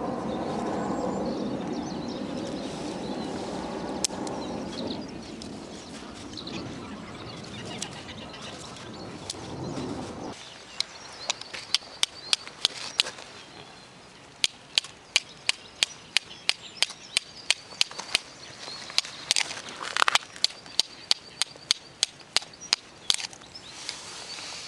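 Knife spine struck again and again down a ferrocerium rod (fire steel) to throw sparks onto tinder, a fast run of sharp scrapes about two to three a second through the second half, with one longer scrape among them. Before that, a low rustle of dry twigs being stacked.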